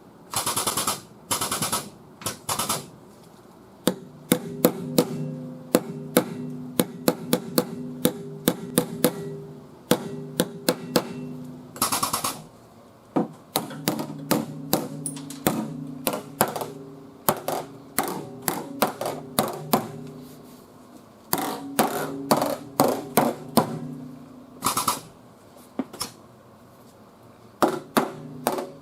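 Hammer blows on the high crown of a steel quarter panel held under tension by a frame-machine pull, knocking the high spot down. The strikes come in quick runs of several a second with pauses between, and the metal rings with a steady hum under them.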